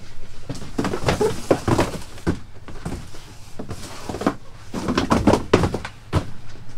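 Cardboard boxes being set down and stacked on the floor of a van's enclosed cargo hold: a string of irregular dull thunks and knocks with scuffing and shuffling.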